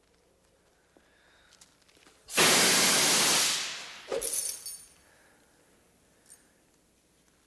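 A sudden loud hiss, like a jet of steam, that holds for about a second and then fades away, followed by a short spell of crackling and rattling.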